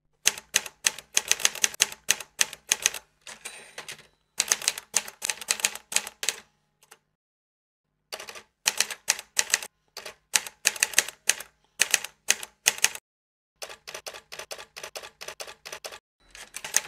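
Typewriter keys striking in quick runs of sharp clicks, several a second, over a faint low hum. The runs pause briefly a few times, with a silent gap of about a second near the middle.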